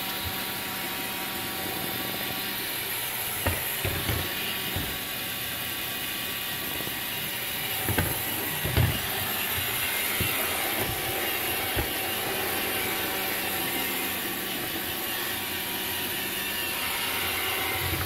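Roomba robot vacuum running, a steady whir of its motor and brushes, with a few dull thumps along the way.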